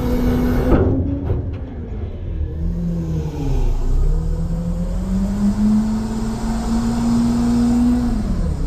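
Front-load garbage truck's engine revving to drive the packing hydraulics. The revs fall off about a second in with a few clicks, sag lower, then climb back up and hold before dropping again near the end.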